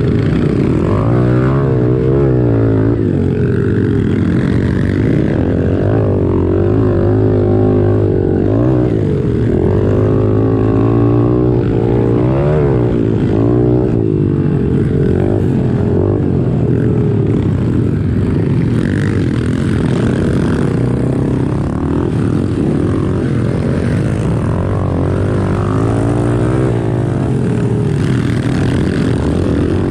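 Small four-stroke pit bike engine running hard in a race, its pitch rising and falling over and over with throttle and gear changes.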